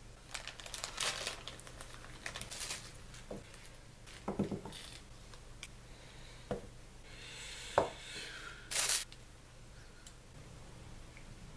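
Plastic packaging crinkling and rustling as small camera accessories are handled, with several light clacks of hard plastic parts being picked up and set down on a table, one sharper than the rest a little past the middle.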